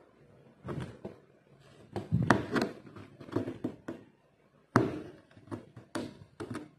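Aari hook needle punching in and out of taut embroidery fabric, making an irregular run of short taps and thuds. The loudest come a little over two seconds in and just before five seconds.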